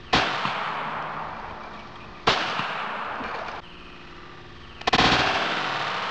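Taurus PT92 9mm pistol firing 147-grain hollow-point rounds: three shots, roughly two to two and a half seconds apart, each followed by a long ringing decay.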